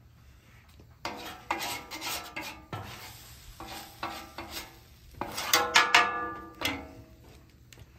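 Metal griddle spatulas scraping and rubbing across the flat-top griddle's cooking surface in a series of strokes with a metallic ring, starting about a second in and loudest a little past the middle. The blades are being worked clean of caked-on sugary sauce residue.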